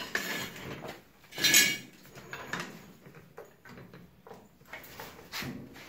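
Metal clanking and clinking, loudest about a second and a half in and again near the end, as the car is let down off its jack stands onto its new four-link rear suspension.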